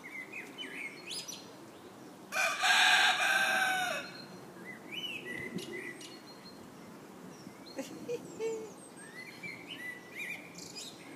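A rooster crows once, about two and a half seconds in: one long call of about a second and a half that drops at the end and is the loudest sound. Small birds chirp briefly before and after it.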